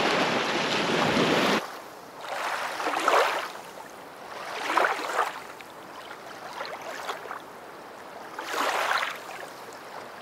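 A steady rush of sea water that cuts off about a second and a half in, followed by gentle splashing and lapping of shallow sea water around an inflatable paddleboard, swelling and fading about every two seconds.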